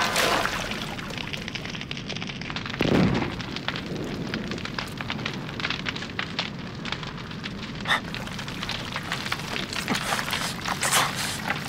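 Fire crackling: a dense, steady run of small clicks and pops, with a dull low thump about three seconds in and a sharper crack near eight seconds.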